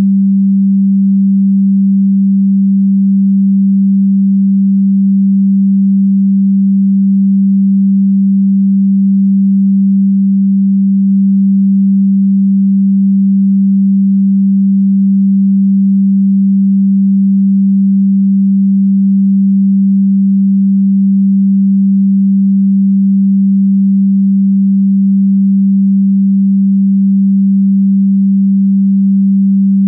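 A single electronically generated pure sine tone, low in pitch, held steady and unchanging throughout.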